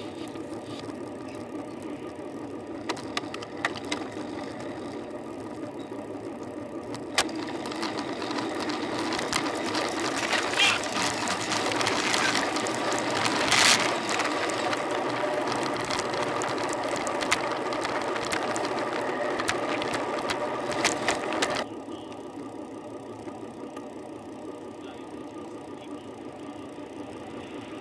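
Riding noise picked up by a bicycle-mounted camera: steady road and wind rush with rattling and frequent sharp clicks from the bike and mount. It grows louder and busier for several seconds in the middle, with one especially loud click or knock about 14 seconds in, then drops abruptly to a quieter, steadier rush about 22 seconds in.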